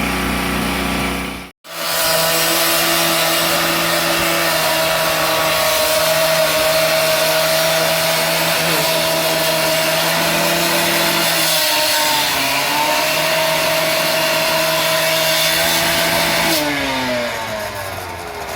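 An electric motor runs loudly at a steady speed, then is switched off about two seconds before the end and winds down, its pitch falling as it coasts to a stop.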